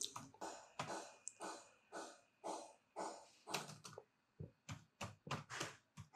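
Computer keyboard keys tapped one at a time: a faint, irregular run of short clicks, about two or three a second, as an IP address is typed in.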